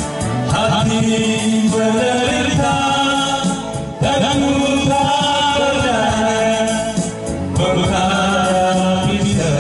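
A mixed group of men and women singing a Christian worship song together into microphones through a PA, in long held notes.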